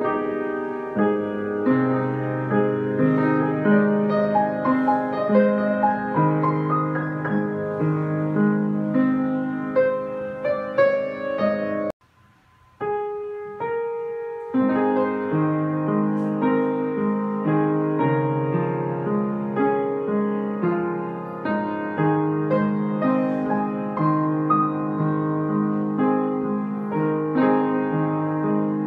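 Kawai upright piano played with both hands, a busy melody over a steadily moving bass. About twelve seconds in the sound cuts out abruptly for a moment, a single note rings on its own, and the full playing starts again.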